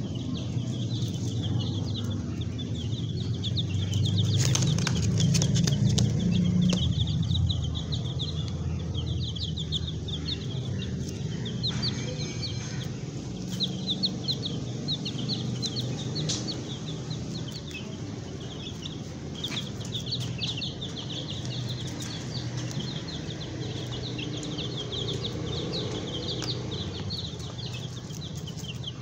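Baby chicks peeping, many short high chirps in quick runs with brief pauses, over a low rumble that is loudest around five seconds in.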